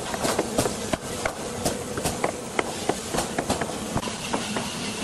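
Hammer driving nails into wooden planks: sharp, irregular knocks several times a second over a steady workshop hiss. A steady, higher hiss joins near the end.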